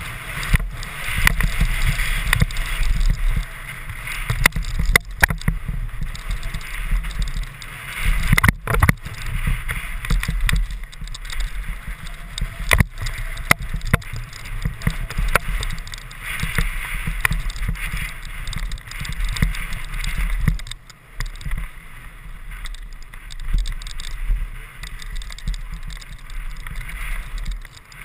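Wind rumbling on the helmet camera's microphone as a mountain bike rides fast down a dirt trail, with the hiss of tyres on packed dirt and scattered knocks and rattles from the bike over bumps.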